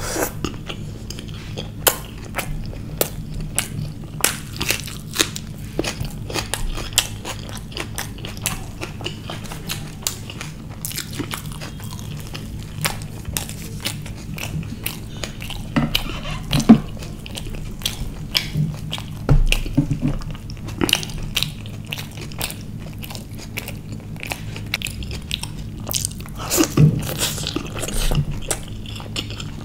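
Close-miked chewing and biting of a man eating naan with rajma (kidney-bean curry): many short mouth clicks, a few louder ones about halfway and near the end, over a steady low hum.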